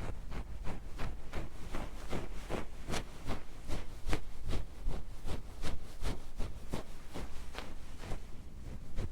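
Close-miked tapping or scratching on a microphone, quick irregular strokes at about four or five a second.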